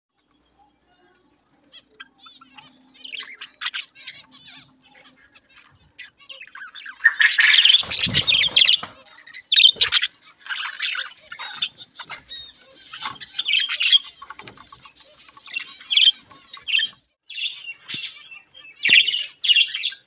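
A flock of budgerigars chattering and warbling in a cage: quick, high-pitched chirps that start about two seconds in and grow busier and louder from about seven seconds on.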